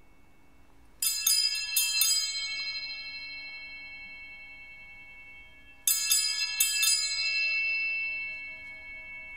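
Small altar bells (sanctus bells) rung in two peals, each a quick cluster of four or five strikes that rings on and fades: the signal for the elevation of the consecrated host.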